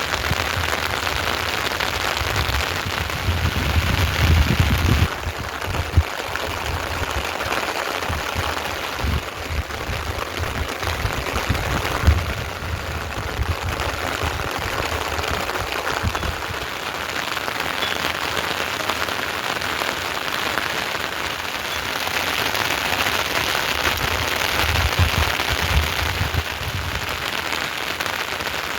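Heavy rain falling steadily, with low rumbling swells a few seconds in and again near the end, and a couple of sharp single knocks.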